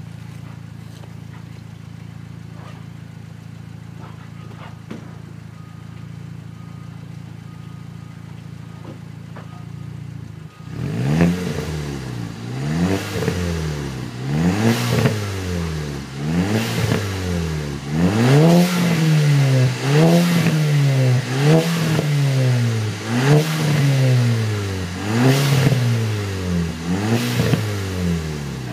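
Skoda Octavia vRS mk2's four-cylinder engine through a non-resonated Milltek cat-back exhaust with the pre-cat deleted, idling steadily, then revved about ten times in quick blips, each rising and falling back to idle about every two seconds, starting about ten seconds in.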